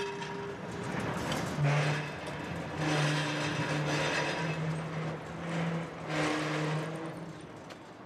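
Vintage tram running: a steady low hum broken into short stretches, with louder rattling surges about two and six seconds in, fading near the end.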